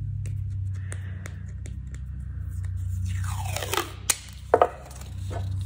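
Strip of masking tape pulled off its roll with a rasping tear that falls in pitch, about three seconds in, followed by a few sharp clicks as the tape is torn and handled. A steady low hum runs underneath.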